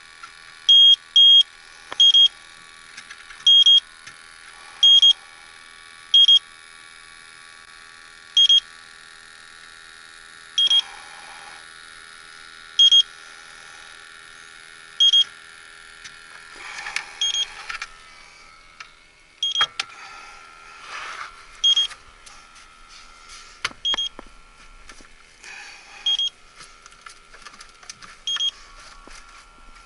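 Electronic refrigerant leak detector beeping: short, high beeps at one pitch, a quick run of three near the start, then one every one to two seconds. Rustling and scraping of handling noise in the second half.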